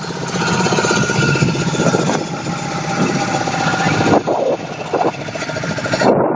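Boat motor running steadily, with a rapid, even putter.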